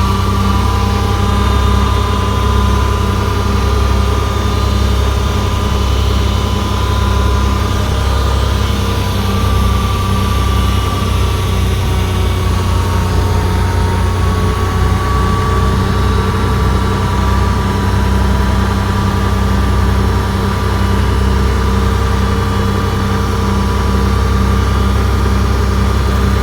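Komatsu D31P bulldozer's diesel engine running steadily with a deep hum, with thin, wavering high tones above it.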